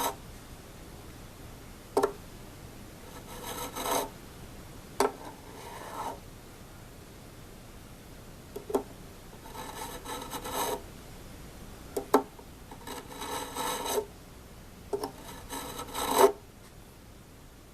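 A fret crowning file rasps back and forth over a mandolin fret, rounding over a flat spot on its top. The strokes come in short runs of a second or so, with sharp taps between the runs.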